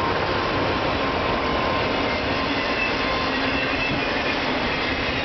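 Freight train's autorack cars passing close at speed: a steady rush and rumble of wheels on rail, with faint high steady tones over it.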